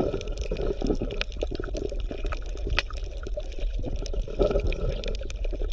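Underwater bubbling and gurgling water, full of many small irregular pops and crackles.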